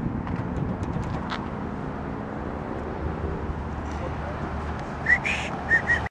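Car engines idling and running, a steady low rumble, with a few short high rising whistles near the end.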